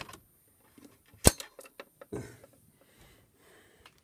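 Sharp mechanical clicks from a Juggler pachislot machine's controls during a setting change. One loud clack comes a little over a second in and a softer knock about two seconds in, with small scattered clicks between.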